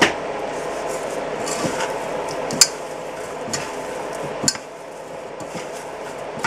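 Hands mixing raw pork strips in an enamel bowl: soft wet squishing with a few sharp clicks and knocks, over a steady background hum.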